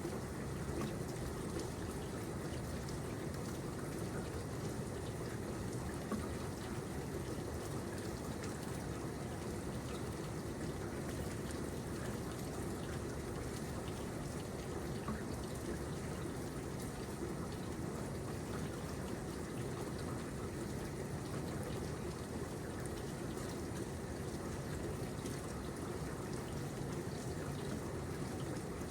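Steady rain falling, with a continuous wash of water and a trickling, pouring sound like runoff from a gutter or downspout.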